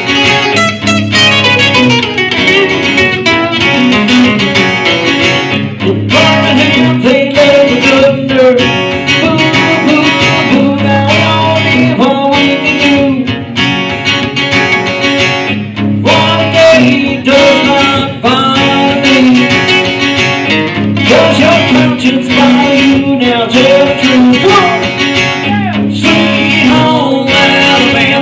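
Acoustic guitar played live through PA speakers, with a bending melody line carried over it and low notes repeating throughout.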